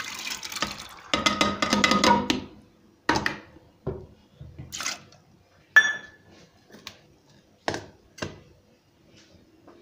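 Wet soaked lentils poured from a steel bowl into a metal pressure cooker, a splashing rush for about two seconds. Then a string of metal clinks and knocks against the cooker, one ringing briefly about six seconds in.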